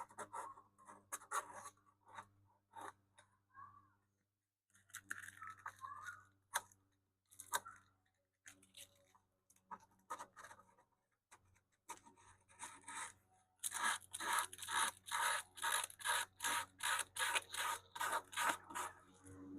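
Sandpaper rubbing by hand along the veneered edge of a wooden radio cabinet. The strokes are short and uneven at first, then about 14 seconds in they become quick, steady back-and-forth strokes, about three a second.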